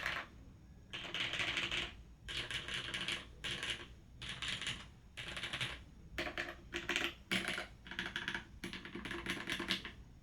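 Typing on a Tomu BNE tenkeyless mechanical keyboard, with an aluminium plate, lubed and filmed Cherry MX Red linear switches and GMK keycaps. Rapid keystrokes come in about eight quick bursts, with short pauses between them.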